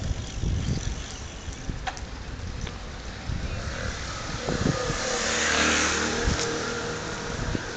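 A motor scooter passing close by: its engine note swells to its loudest a little past halfway, then fades. Underneath runs a low wind rumble on the microphone of a moving bicycle.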